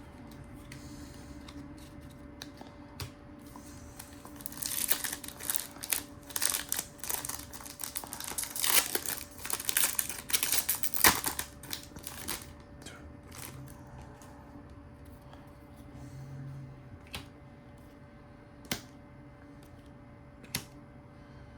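Trading-card pack wrappers crinkling and tearing open, with cards clicking and sliding against each other. The crinkling runs densest for several seconds in the middle, then only scattered clicks follow.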